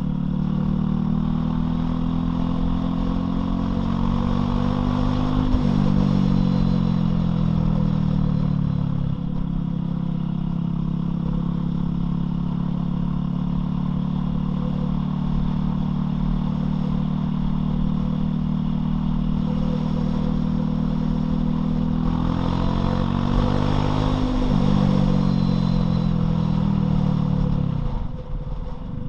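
Loncin LX250-12C motorcycle engine, a 250 cc single, under way: it rises in revs and drops at a gear change about five seconds in, then runs at a steady pitch for a long stretch. It revs up again and shifts about three-quarters of the way through, with a short drop in revs near the end.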